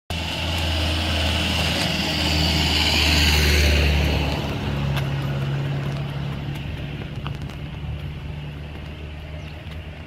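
A motor vehicle's engine running close by, a low hum with a rushing noise, loudest about three to four seconds in and then fading away.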